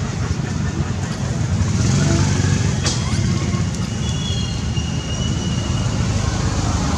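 Steady low outdoor rumble, like distant traffic, with a brief faint high squeak about halfway through.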